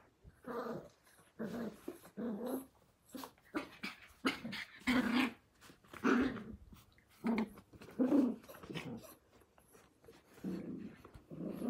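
Australian Cattle Dog puppies growling in play as they wrestle: a string of short growls, about one a second, with a pause near the end.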